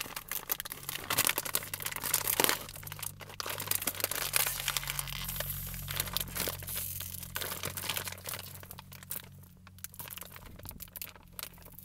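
Foil cracker pouch crinkling and crackling as hands twist and pull at its serrated edge, working to tear it open. The crinkling comes in busy bursts and thins out in the last few seconds.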